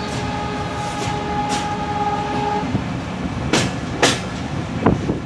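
A passenger train running slowly, heard from a coach window: a steady rumble, with the horn sounding one held tone that stops about two and a half seconds in. Then the wheels clack sharply over rail joints twice, half a second apart, and a few more times near the end.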